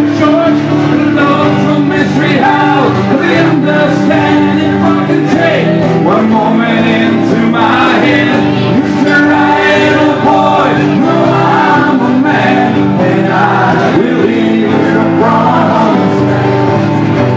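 Live rock band playing, with male lead singing over strummed acoustic guitar, loud and steady.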